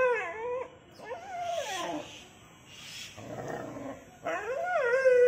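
Dog whining in a series of drawn-out, wavering calls, excited at the sight of a cat.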